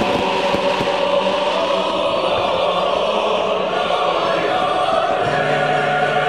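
Choir singing slow, chant-like music in long held chords, with a deeper note coming in about five seconds in.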